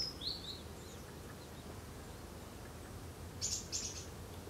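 Quiet outdoor ambience with a small bird calling: two quick falling chirps at the start. About three and a half seconds in come two brief hissy sounds.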